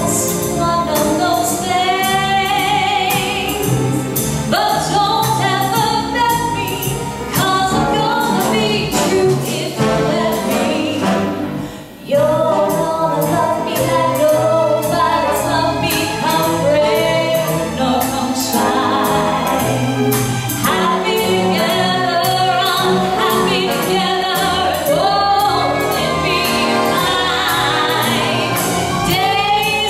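A woman sings a show tune with vibrato, backed by a symphony orchestra playing to a steady beat. The music dips briefly about twelve seconds in, then carries on.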